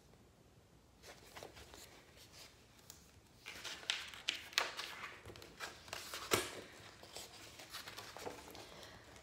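Soft paper rustles and crisp flicks as the pages of a picture book are turned and handled. They are clustered about a third of the way in to two thirds of the way through.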